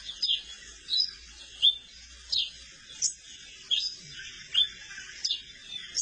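Yellow-billed cardinals calling: short, sharp chirps that slur downward, repeated about every two-thirds of a second, some in quick pairs.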